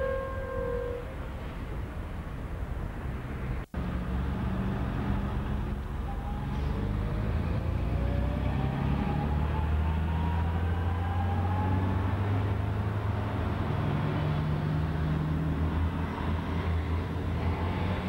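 Road traffic: car and bus engines running with a steady low drone, and a rising whine over several seconds as a vehicle accelerates. A short tone sounds at the very start, and the sound drops out for an instant about four seconds in at a tape cut.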